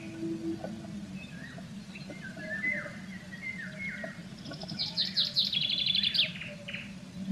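Songbird calling: a few short chirps, then a fast trill of repeated higher notes for about two seconds, the loudest part of the sound. The audio is played about 1.3 times faster than real time, which raises the pitch.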